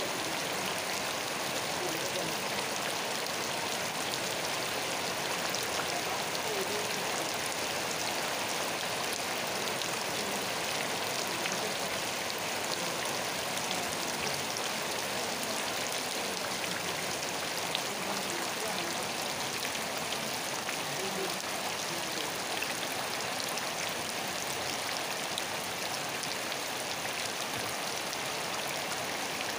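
Steady rain falling: an even hiss filled with the fine patter of countless drops, unchanging throughout.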